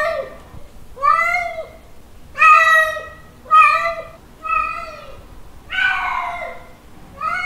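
A male cat's mating call: a string of meows about once a second, each rising and then falling in pitch, with a longer call about six seconds in.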